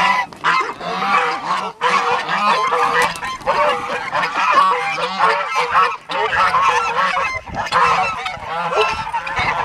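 A flock of domestic geese honking, many calls overlapping without pause.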